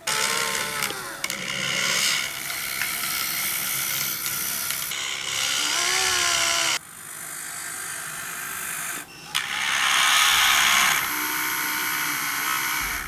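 Geared electric motors of a home-made 1:32 scale RC Komatsu PC450 excavator running as the arm and bucket dig and dump soil, a mechanical whine that rises and falls in pitch as the motors speed up and slow down. It starts abruptly, cuts out sharply about halfway, returns quieter, then comes back loud for the last few seconds before stopping suddenly.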